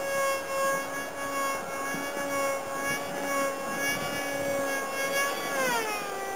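Motor and propeller of a homemade RC delta-wing plane whining steadily in flight, then falling in pitch about five and a half seconds in as the throttle is pulled back.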